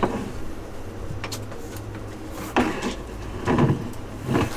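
A few clicks, then knocks and sliding scrapes from the engine control lever and the new control cables being worked inside a sailboat's steering pedestal, over a low steady hum.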